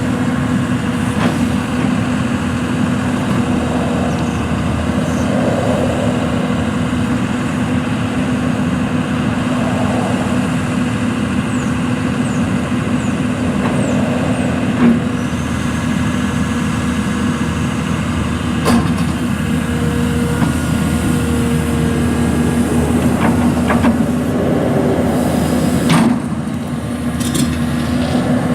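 Komatsu PC240LC-10 excavator's diesel engine running steadily, with a few sharp metallic knocks from the machine about halfway through and again near the end.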